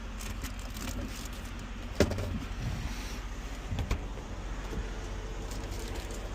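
Steady low hum of an idling truck heard inside the cab, with one sharp click about two seconds in and a few softer knocks near four seconds.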